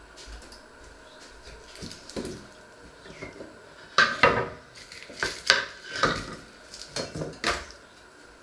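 Kitchen handling knocks: a small wooden board and onions being set down on a wooden chopping board. A few soft knocks early, then a run of sharp wooden knocks and clatter from about halfway through.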